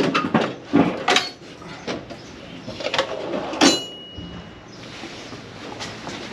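Clicks and clatter of metal hand tools being handled, with a louder clatter about three and a half seconds in followed by a brief high ring.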